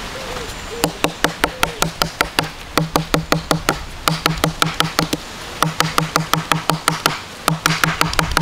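A wooden stick pounding a variegated snake plant leaf against a wooden board: rapid sharp knocks, about six a second, in runs with short pauses, each with a short low ring. The pounding breaks up the leaf's pith to free its fibres for a bowstring.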